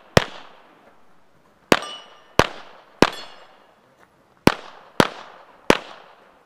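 Seven gunshots in quick, uneven succession, each a sharp crack with a short echo, fired at a plate rack. Several shots are followed by a brief metallic ring as a steel plate is hit.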